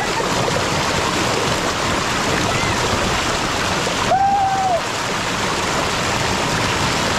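Steady, loud rush of river rapids pouring over boulders and splashing around a man sitting in the current. About four seconds in, he gives a short shout, held at one pitch for about half a second.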